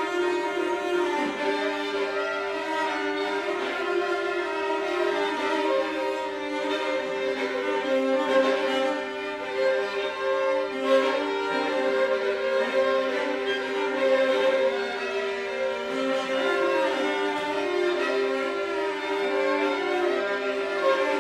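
Violin and cello playing a duet, both bowed: a steady held note sounds throughout beneath a moving melodic line.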